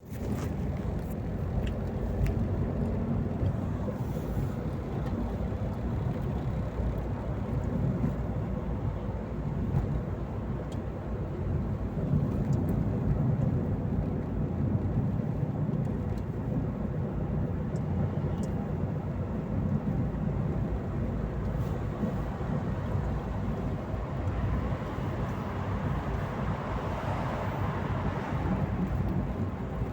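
Audi A2 1.2 TDI '3L' three-cylinder diesel engine running steadily, with a low rumble. A broader rush of higher-pitched noise swells and fades near the end.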